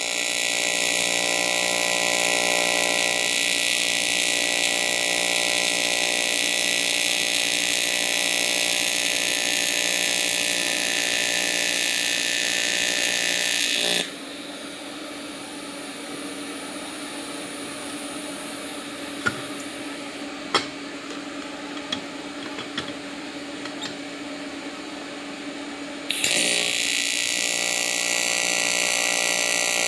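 AC TIG welding arc on 16-gauge aluminum tube, buzzing steadily. About halfway through the arc stops, leaving a lower steady hum with a few light clicks, and it strikes up again near the end.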